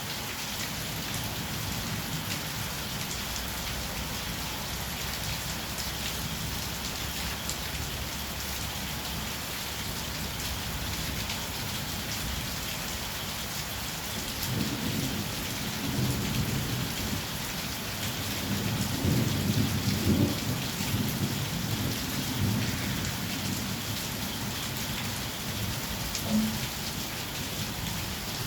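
Heavy rain pouring steadily, with a long low rumble of thunder building about halfway through, loudest a little after that, then dying away.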